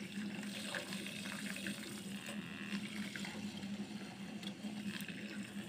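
Handheld coffee frother running steadily, its spinning wire whisk churning hot chocolate in a pan with a watery swishing and a faint motor hum.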